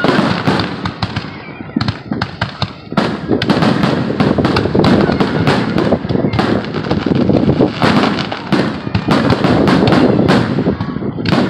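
Fireworks going off in a dense, rapid string of bangs and crackles, the blasts overlapping almost without a break from about three seconds in.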